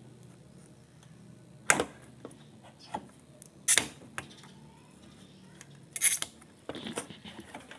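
Sharp clicks and knocks of a soldering iron and a component against a circuit board during desoldering: three loud ones about two seconds apart, smaller ticks between, and a quick rattle of clicks near the end.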